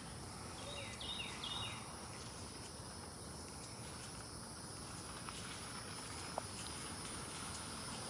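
Faint outdoor ambience: a steady high-pitched insect drone, with two short falling bird chirps about a second in and a single faint click later on.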